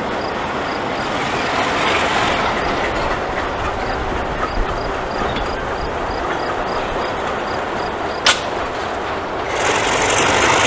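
Alco diesel locomotives rolling past at close range: a steady rumble of engines and wheels on the rails, with a single sharp clank about eight seconds in and the noise swelling near the end.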